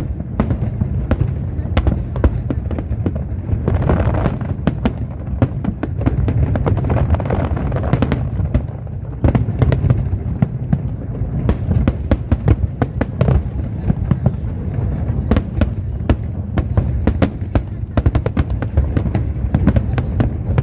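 Fireworks display going off continuously: a dense stream of sharp bangs and crackles over a constant low rumble of booms.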